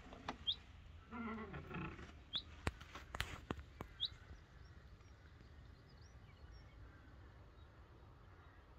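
Small bird chirping outdoors: short rising chirps every second or two, with another animal's brief call about a second in and a couple of sharp clicks near three seconds. After that, faint rural background with a few distant chirps.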